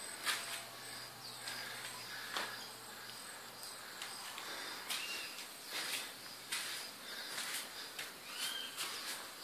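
An insect chirping in a steady, evenly pulsed high note, with a couple of short bird calls. Irregular scuffs and knocks run over it.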